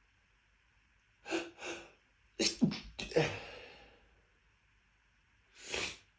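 A person in a dust-triggered sneezing fit: two catching breaths, then sharp sneezes in quick succession about two and a half seconds in, followed by another breath near the end.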